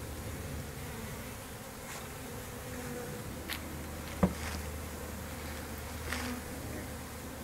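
A dumped-out honeybee colony massed on a tarp, buzzing steadily as the bees crawl and fly. A single sharp click about four seconds in.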